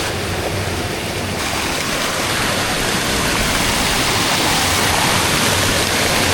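Steady rush of flowing water from a stream and waterfall, growing a little louder about a second and a half in.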